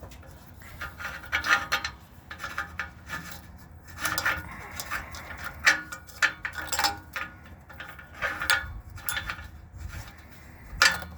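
Hand tools scraping, rubbing and clinking against metal parts under a car, in irregular short bursts, with a sharp click about halfway through and another near the end.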